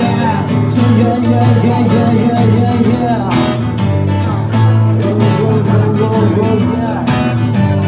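Band music led by guitar between sung lines of a pop-rock song.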